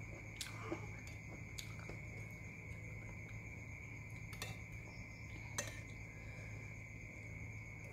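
Close-up chewing and gnawing on chicken feet, with a few sharp clicks scattered through. A steady high tone and a low hum run underneath.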